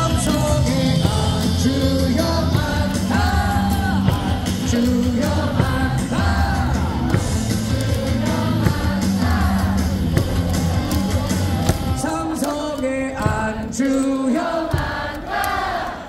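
A baseball player's cheer song played with a heavy beat while the crowd sings along. About twelve seconds in the bass drops away and the singing carries on.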